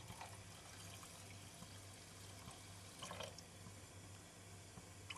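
Faint trickle of a thin stream of water pouring into an enamel pot of rice and water, with small splashes about three seconds in and a low steady hum underneath.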